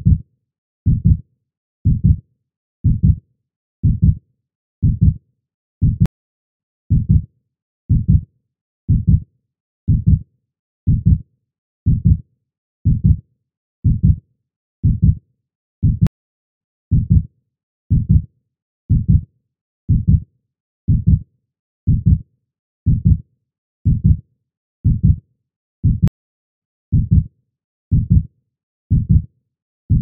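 Heartbeat sound effect: a steady lub-dub double thump about once a second, low and dull.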